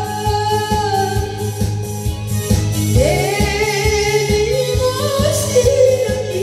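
A woman singing into a handheld microphone over a karaoke backing track with a steady beat. She holds long notes, and a new phrase starts about three seconds in.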